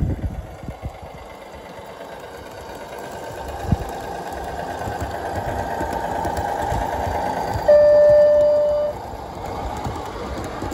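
Garden-scale model diesel locomotive running past, its motor and gear whine growing louder as it draws near. About eight seconds in it gives a single horn blast of about a second on one steady note, which cuts off sharply.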